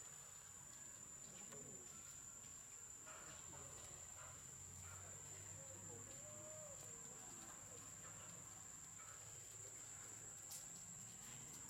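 Faint, steady high-pitched insect drone, with a few soft short calls in the middle.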